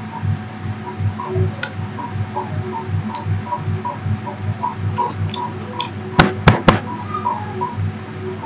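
A steady hum with a soft, even pulsing about two to three times a second, and three sharp clicks a little past the middle.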